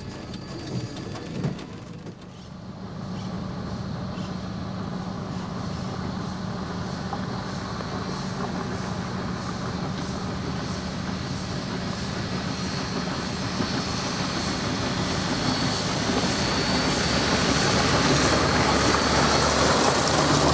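Steam locomotive 620 hauling its train as it approaches and passes, with a steady rumble that grows louder as the engine draws near.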